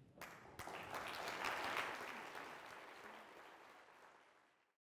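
Audience applauding. The clapping builds over the first couple of seconds, then fades out and cuts to silence near the end.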